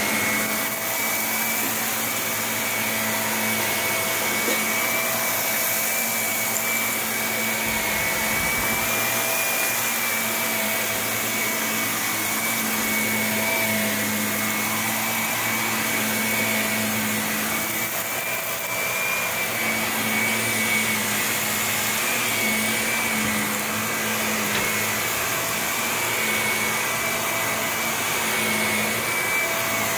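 Upright vacuum cleaner running steadily as it is pushed over carpet: a constant rush of air under a steady high motor whine and a lower hum.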